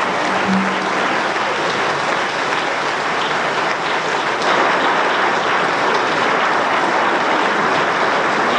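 Large theatre audience applauding steadily as the performers take their bow.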